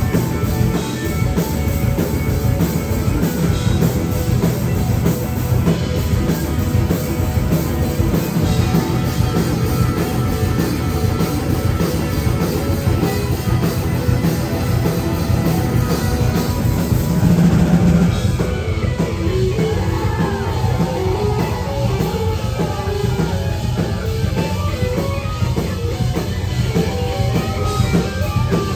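Live rock band playing instrumental music, with drum kit and guitar. About two-thirds of the way through, the dense full-band sound drops back to a sparser passage with clearer separate notes.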